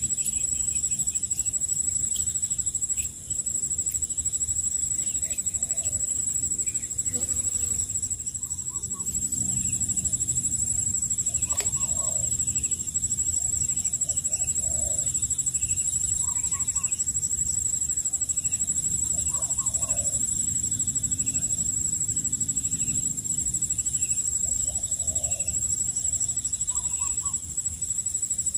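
Chickens clucking, short calls scattered through, over a steady high-pitched whine.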